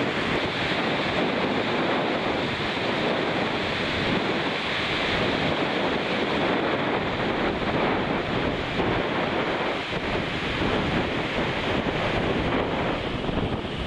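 Hurricane Irene's storm wind rushing through thrashing trees in a steady, gusting roar, with heavy wind buffeting on the microphone.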